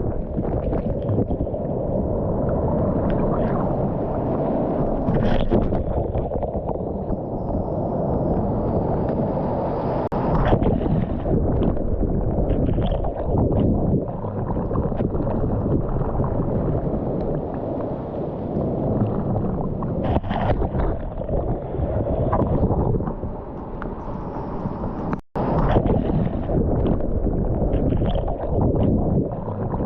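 Steady wind buffeting the microphone over ocean surf washing on the beach, the noise heavy and low and rising and falling. The sound cuts out for an instant about 25 seconds in.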